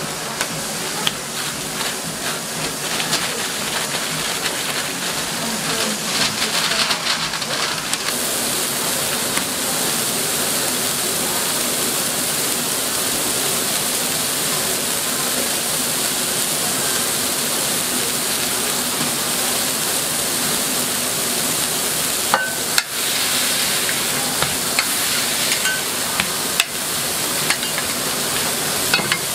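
Beef patties sizzling steadily on a flat-top griddle, the sizzle filling out into a fuller hiss about eight seconds in. Near the end come a few sharp clicks and scrapes of a spatula on the griddle.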